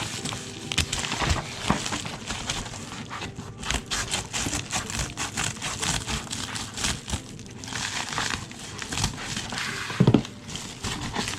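Packaging crinkling and rustling as a package is opened by hand, with many small irregular crackles and clicks; a brief louder sound about ten seconds in.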